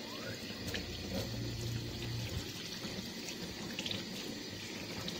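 Kitchen tap running steadily into a stainless steel sink, the stream splashing over a split-open ribbonfish held in the hands as the blood is rinsed out of its belly cavity.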